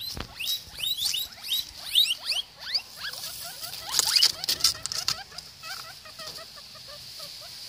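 Guinea pigs wheeking, the excited squealing they give when food is coming, in a rapid run of short rising-and-falling whistles. After about three seconds the calls turn lower and shorter. Around the fourth second there is a loud rustle of handled grass.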